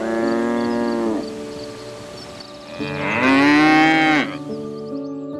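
Bison lowing twice: two long calls, the first right at the start and the second, louder one about three seconds in.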